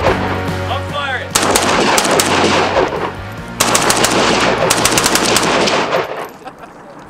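Rapid automatic gunfire in long bursts from a firearm, three runs of fire with short pauses between them, the last burst stopping about six seconds in.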